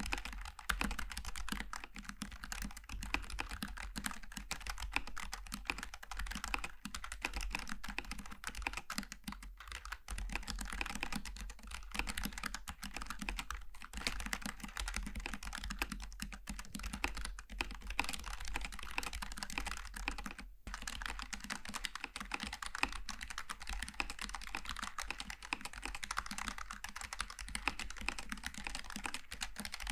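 Typing on a Logitech G915 TKL keyboard with low-profile GL Tactile switches: a fast, continuous stream of key clacks, with a momentary pause about twenty seconds in.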